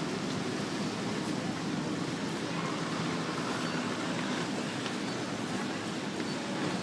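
Steady outdoor ambience of busy canal traffic: a low, even hum of motorboat engines under a wash of crowd noise, with no distinct single event.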